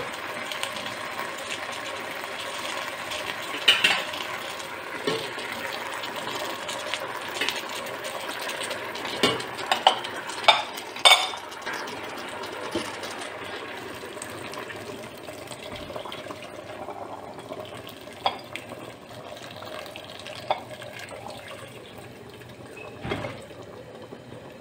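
Water poured steadily into a stainless steel pot of packed dolma, filling it until it covers the ceramic plates that weigh the rolls down. Several sharp clinks of the plates against the pot sound through the pour.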